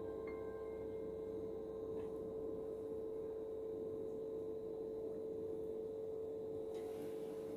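Soft ambient background music: one long held drone note with a couple of quiet notes entering in the first two seconds.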